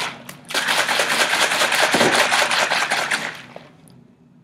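Powdered Schmoylent and water shaken hard in a plastic Soylent pitcher with a snap-on lid, a fast rattling slosh while the drink is mixed; it stops about three and a half seconds in.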